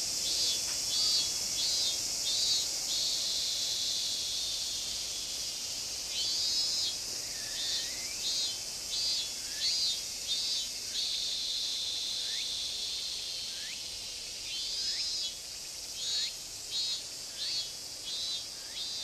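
Cicadas calling: runs of short, high, pulsing chirps at about two a second, broken twice by a stretch of steady high buzzing.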